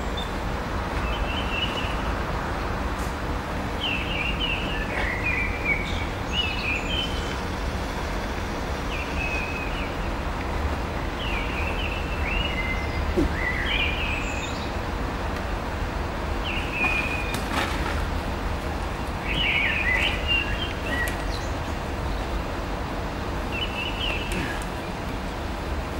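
Birds chirping: short, quick calls, several falling in pitch, every second or two. Under them runs a steady noise with a low rumble.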